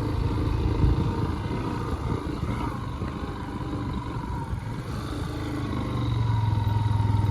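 Vehicle engine running on an off-road drive, its low hum easing off in the middle and growing stronger again near the end.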